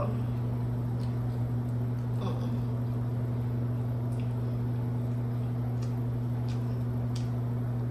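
A steady low hum, with faint scattered small clicks and crackles as crispy fried chicken tenders are torn apart by hand.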